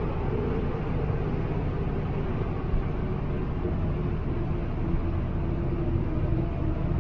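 Bus engine and road noise heard from inside the passenger cabin of a moving bus, a steady low drone.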